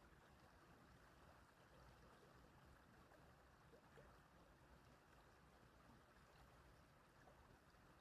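Faint, steady babble of a small stream, with a few tiny water blips.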